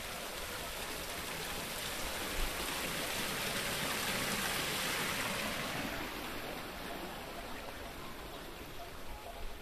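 Water splashing steadily from a small rock waterfall into a garden pond, swelling to its loudest about four seconds in, then fading.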